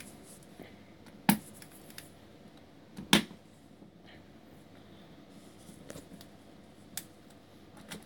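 Fish mix fertiliser bottle being worked at to get its cap and seal open one-handed: two sharp knocks or clicks about a second and about three seconds in, a smaller click near seven seconds, and faint ticking and rustling of handling between.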